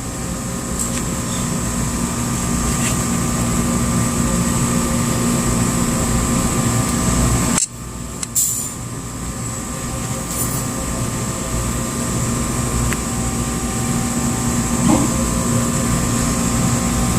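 Steady mechanical hum, like running air-conditioning or refrigeration machinery. It briefly cuts out about seven and a half seconds in, then resumes.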